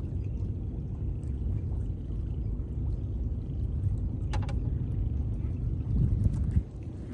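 Steady low rumble, with a few short clicks about four seconds in and again near the end.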